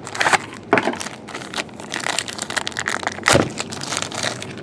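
A cardboard trading-card pack box being torn open and its black plastic inner wrapper crinkled and pulled apart: a run of crackles and small tears, with the loudest crack a little past three seconds in.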